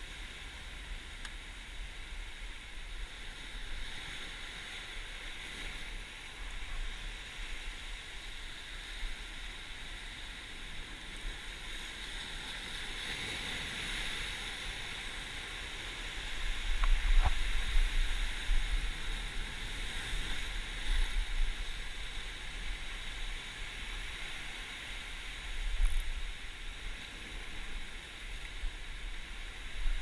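Ocean surf washing and breaking against a rocky shoreline: a steady rush with louder surges about halfway through and again near the end, mixed with wind rumbling on the microphone.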